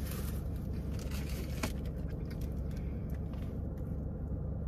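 Steady low hum of a car's interior, with small scrapes and clicks of a fork in a cardboard fries box as two people eat.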